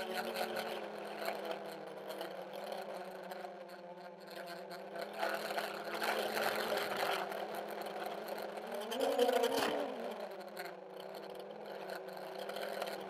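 Armattan CNC 355 quadcopter's brushless motors and propellers whirring steadily, heard from the camera on the frame, several motor tones at once. About nine seconds in the pitch rises and falls as the throttle is briefly punched.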